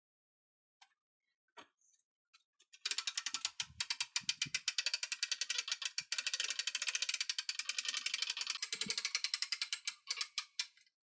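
Winch on a homemade mini forklift being cranked by hand, its ratchet pawl clicking in a fast, even run as it raises the forks with a loaded cardboard box. The clicking starts about three seconds in, runs for about seven seconds with a few low knocks mixed in, and slows to scattered clicks near the end.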